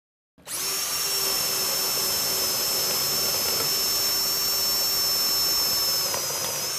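Power drill running steadily as it bores into wood with an Irwin 4X flat (spade) wood bit, a constant high motor whine over a lower hum. It starts abruptly about half a second in and runs without a break.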